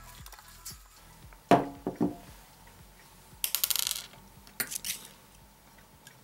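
Sharp ringing metal clinks from handling a brass clock movement and tools, two of them about a second and a half and two seconds in. About halfway through comes a short hiss that fits a burst from a spray can of grease, followed by a smaller clink and hiss.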